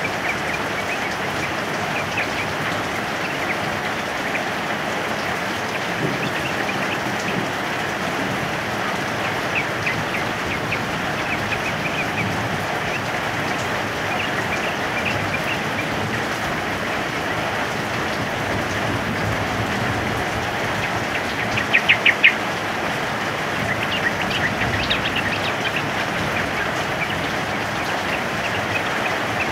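Steady heavy rain with yellow-vented bulbuls (trucukan) chirping through it. About 22 s in comes a loud, quick run of notes, and a shorter cluster follows a few seconds later.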